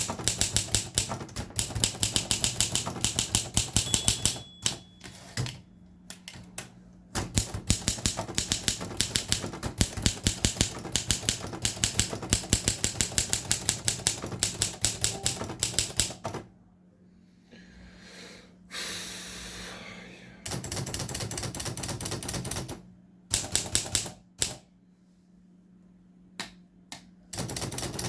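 Olympia SM3 manual typewriter being typed on: fast runs of sharp keystroke clacks with short pauses, then a quieter stretch without strikes, then a few scattered keystrokes near the end. A steady low hum runs underneath.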